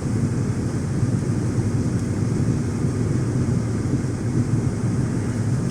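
Steady low rumble of a car driving at speed, heard from inside the cabin: tyre and engine noise, with a fainter steady hiss above it.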